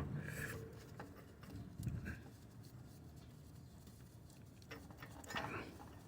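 Faint handling noises, small clicks and rustling as an old oil filter is turned off by hand, with a short louder scrape or grunt about five and a half seconds in.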